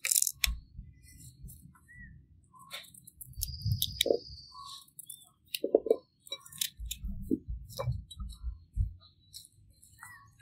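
A small paring knife scraping and cutting the skin off small white root vegetables, in scattered short scrapes and clicks with soft handling thumps. A few brief bird chirps sound in the background.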